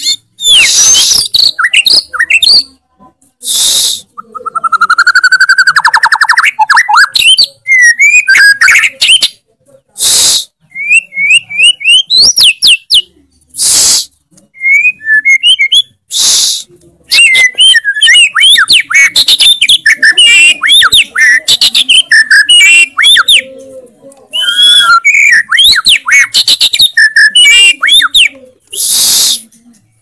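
White-rumped shama (murai batu) in full, loud song: a fast run of whistled slurs, rising trills and chirps, broken every few seconds by short, noisy rasps.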